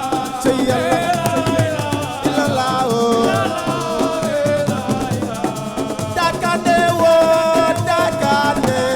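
Senegalese assiko music: a singer's wavering, drawn-out melody over dense hand percussion with a shaker.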